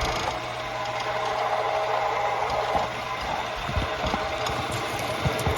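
Steady machinery hum with a noisy background, and a few dull thumps about four and five seconds in.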